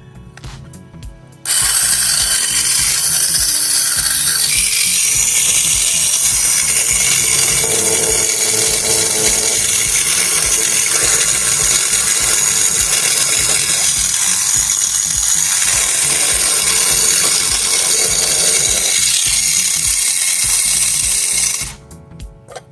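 Small Tamiya DC motor driving a toy's plastic gearbox, running steadily with a loud gear whirr. It starts about a second and a half in and stops shortly before the end.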